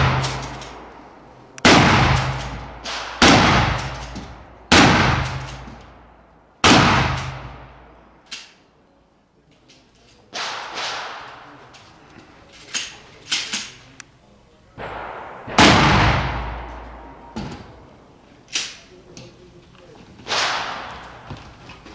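Single gunshots fired one at a time, about every one and a half to two seconds, each with a long echoing decay. Fainter sharp cracks come between the main shots, clustered about thirteen seconds in.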